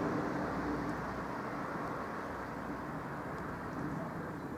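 Street ambience of road traffic: a low rumble of passing vehicles, one fading away in the first second or so, with no crossing alarm sounding.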